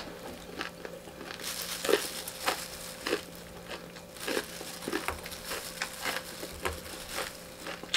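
Close-up chewing of crispy fried chicken wing meat, with the crinkling of a thin plastic food glove, heard as a string of short crackles, thickest a second or two in.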